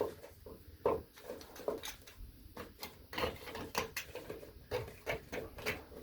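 A blade scraping and chipping thick layers of old paint off a metal door hinge, in a run of short, uneven scrapes and knocks, about two or three a second.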